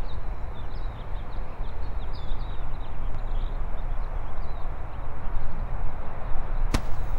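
Outdoor park ambience: a steady rushing background with small birds chirping and twittering through the first few seconds, then a single sharp tap near the end.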